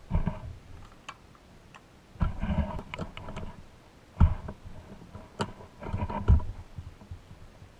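Gloved hands handling a vintage Tonka pressed-steel toy truck on a carpeted bench: scattered light clicks and knocks as the front grille is worked free, with a sharper knock about four seconds in and another just after six seconds.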